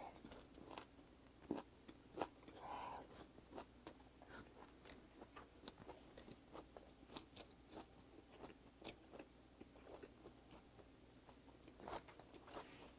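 A person chewing a large mouthful of raw flatfish sashimi wrapped in aged kimchi, close to the microphone: faint, irregular small clicks and crunches of chewing throughout.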